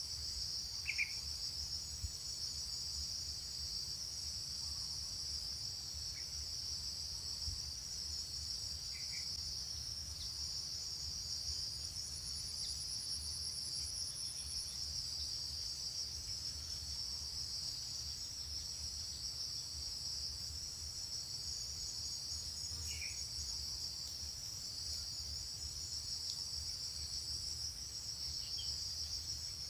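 Steady chorus of insects, a continuous high-pitched shrill buzz, with a few faint short chirps now and then.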